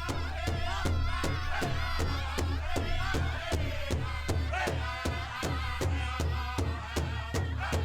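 Music with a fast, steady percussive beat of about four to five strokes a second over a held low bass, with a singing voice wavering above it.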